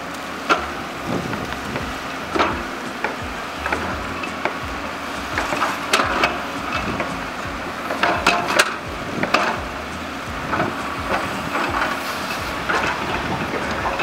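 JCB tracked excavator at work: a steady engine hum under irregular clanks and knocks. Several sharp knocks come in quick succession about eight to nine seconds in.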